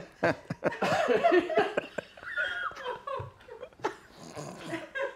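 Two men laughing in uneven bursts.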